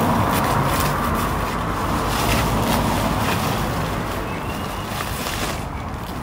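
Bubble wrap and plastic packaging crinkling and rustling as wrapped items are handled and pulled out of a cardboard box, over a steady background rumble of outdoor noise.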